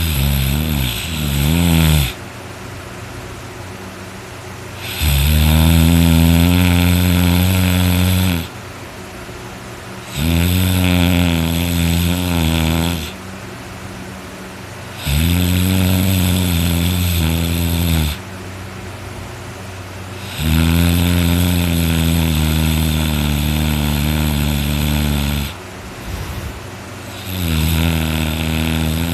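A sleeping person snoring very loudly: about six long, deep snores, each lasting a few seconds, repeating at a steady rhythm with short quieter pauses between breaths.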